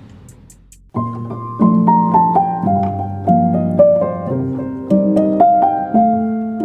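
Background music: a solo piano piece with a descending, then rising melody over held chords, starting about a second in after a short faint lull.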